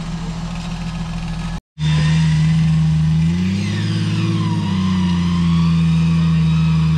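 Off-road Jeep's engine held at high revs, straining as the vehicle climbs a muddy bank. Its pitch rises a little about three seconds in and drops back a second or so later. The sound cuts out briefly near the start.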